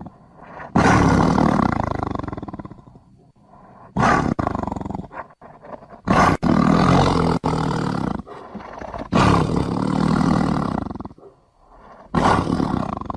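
A series of deep big-cat roars, about five, each starting abruptly and fading away over a second or two.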